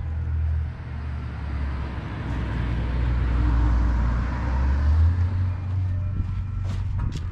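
A car passing on the street, its road noise swelling for a few seconds and fading, over a steady low rumble.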